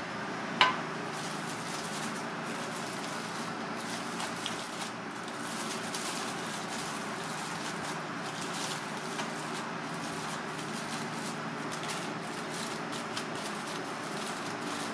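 Steady background hum of a workspace, with one sharp ringing clink, like metal or crockery being set down, about half a second in and a few faint ticks after.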